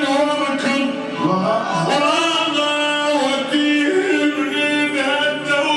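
A vocal lament sung in long, wavering, ornamented notes over instrumental accompaniment.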